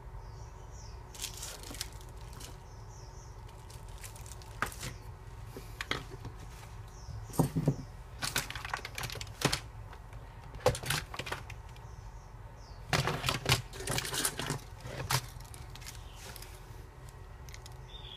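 Irregular clicks, knocks and rustles of a wireless doorbell push-button being handled and pressed to trigger it so the keypad unit can enroll it. The clicks come in clusters, the densest about halfway through and again about three quarters of the way in, over a steady low hum.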